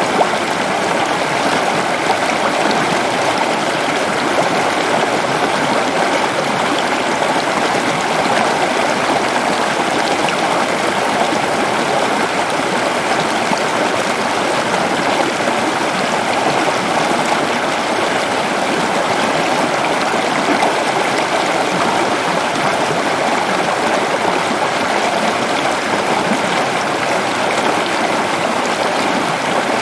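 Waterfall in a forest, water pouring and splashing in a steady, loud, unbroken rush.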